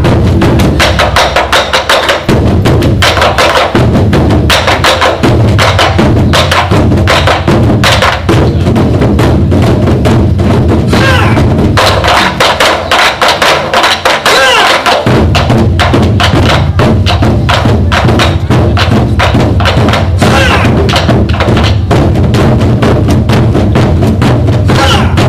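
Korean drum ensemble playing a fast, loud, driving rhythm with many strokes together. The deep drums drop back for a few seconds past the middle and then come back in full.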